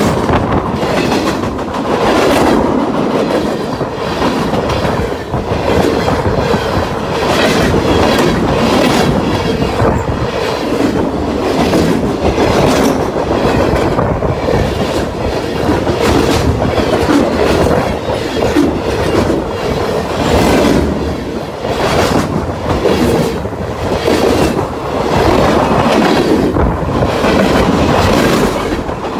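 Freight cars of a long manifest train rolling past right beside the microphone: a loud steady rush of steel wheels on rail, with repeated clacks as the wheel sets pass.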